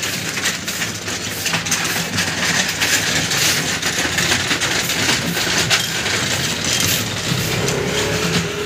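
Busy wet market ambience: a steady din with frequent small clatters and clicks over a low steady hum.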